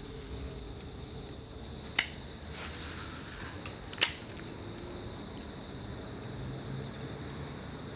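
Two sharp clicks about two seconds apart, with a short high hiss between them, over a steady faint background.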